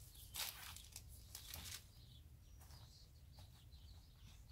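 Cabbage leaves rustling and crunching in a few short bursts as the plant is handled and cut with a knife, then near silence.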